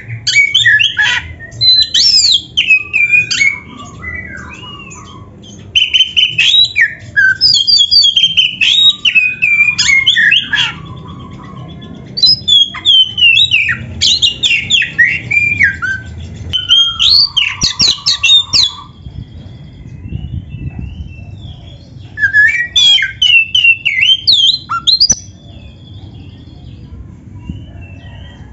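Oriental magpie-robin (kacer) in full vigorous song: loud, varied phrases of rapid whistled notes that sweep up and down in pitch, delivered in four bouts with short pauses between.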